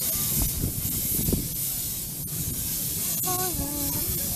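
Steady hiss of steam from the narrow-gauge steam locomotive pulling the train, with the low rumble of the moving train underneath and two sharp clicks about two and three seconds in.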